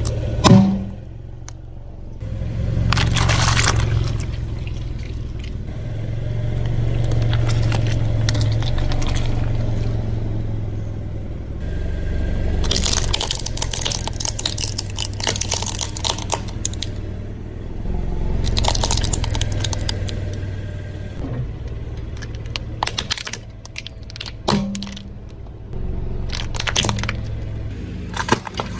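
A car tyre rolling slowly over small plastic toys and crushing them, with several bursts of cracking and crunching plastic over a low rumble from the car. The loudest is a single sharp crack about half a second in.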